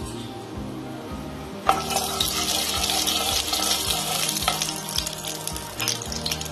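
Cumin seeds sizzling and crackling in hot mustard oil in a kadai, the tempering (phoron) for a dish, while a wooden spatula stirs and scrapes them. The sizzle comes up suddenly about a second and a half in and keeps going.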